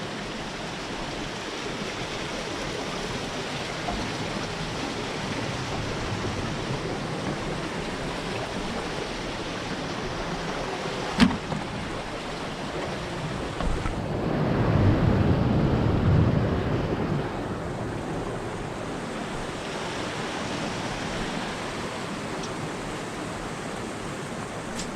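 Sea waves washing steadily, with wind noise on the microphone. A single sharp click comes about 11 seconds in, and a louder surge of water and wind swells and fades a few seconds later.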